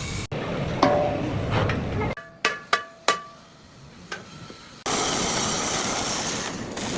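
Hammer blows on steel: four sharp strikes, each ringing briefly, a little past two seconds in. Before and after them is a steady hissing noise of metalwork, which returns loudly near five seconds.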